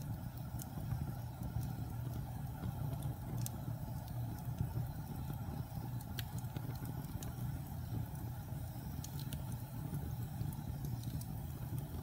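Wood fire of split logs burning in a fireplace: a steady low rumble of flames with scattered sharp crackles and pops from the burning wood.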